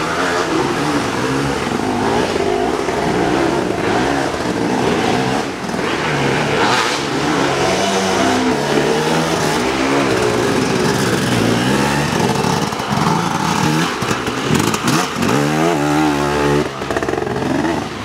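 Enduro dirt bike engine revving up and down over and over as the rider works the throttle along a wooded trail. Near the end it climbs quickly in pitch several times as the bike comes past close by.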